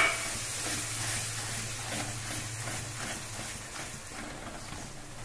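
Spiced onion-tomato masala sizzling in a hot pan while tomato purée is stirred in with a wooden spatula, with a sharp clack at the start. The sizzle slowly dies down as the wet purée cools the pan.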